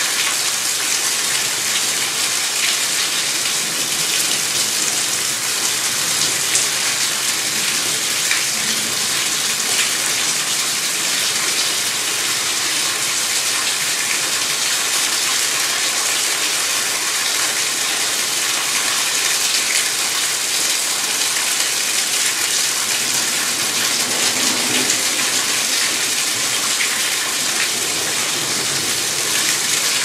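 Rainwater overflowing a gutter and pouring into grass, a steady splashing with rain falling around it.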